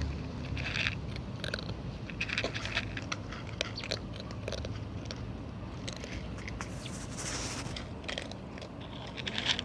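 A cat eating, chewing and crunching its food in quick, irregular bites.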